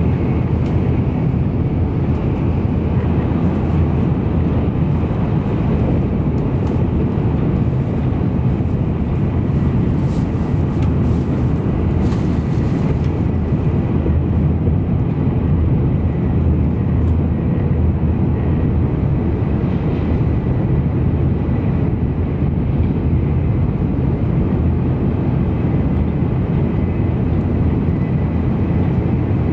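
Cabin running noise of an N700 series Shinkansen travelling at high speed: a steady low rumble of wheels, track and air, with a faint steady high whine.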